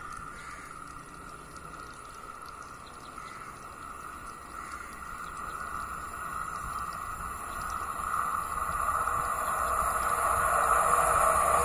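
Approaching KTM Class 93/2 ETS electric train, a rising rush and hum that grows steadily louder over the last several seconds as it nears.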